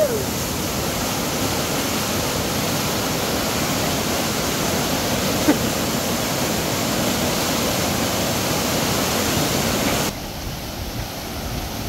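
Steady rushing of a river in flood, swollen by heavy rain. About ten seconds in the sound drops a little and turns duller.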